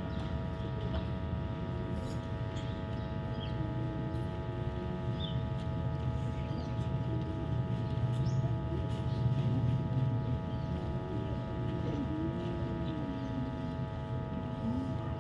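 Outdoor schoolyard ambience: a steady low rumble swelling and fading about two-thirds of the way through, over a constant hum, with faint murmuring of children and a few brief bird chirps.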